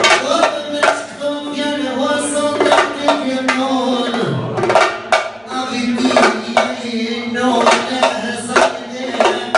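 Music: a drum beats steady strokes under a held melody line that slides down in pitch about four seconds in.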